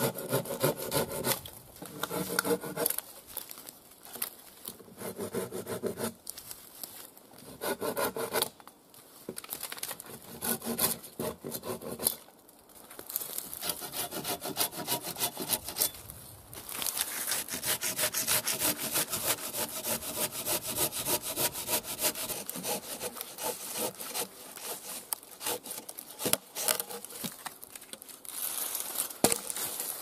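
Silky Zubat 330 curved pruning saw cutting through a log, worked one-handed in rapid back-and-forth strokes. The first half comes in several short runs of strokes with brief pauses; the second half is one longer unbroken run of sawing.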